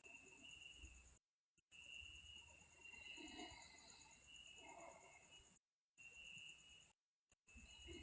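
Near silence: faint background noise with thin, steady high tones, cutting out to dead silence three times.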